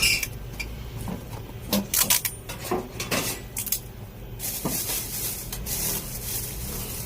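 Parcel being unpacked by hand: hard objects clinking and knocking against each other in a quick string of clicks, then a stretch of rustling packaging.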